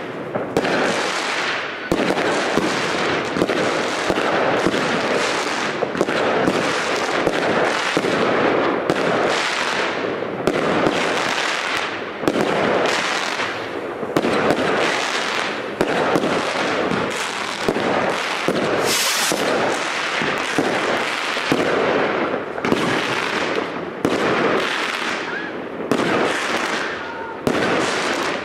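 New Year's Eve fireworks going off continuously: a dense, unbroken run of bangs and crackling, with sharp reports every fraction of a second.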